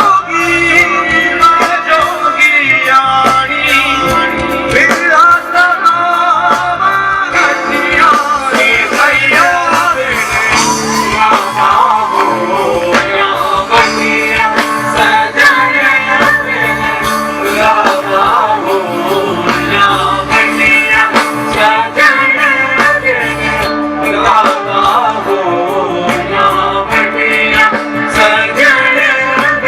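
Live band music: a wavering melody line over a dense layer of percussion strikes.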